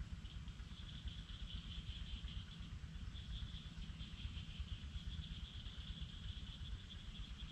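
Insects trilling steadily in high, slightly pulsing tones, over a low rumble.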